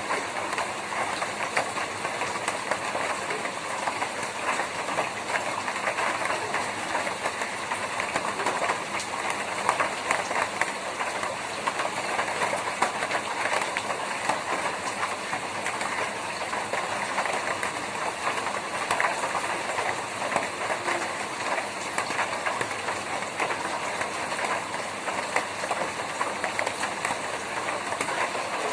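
Rain falling steadily on a tin roof: a dense, unbroken patter of drops that holds the same level throughout.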